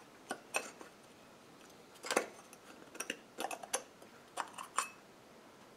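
Scattered light metallic clicks and clinks as a steel 3-jaw lathe chuck is handled and its thin aluminium rear cover plate is taken off: about a dozen sharp ticks, the loudest about two seconds in and a quick cluster a little after three seconds.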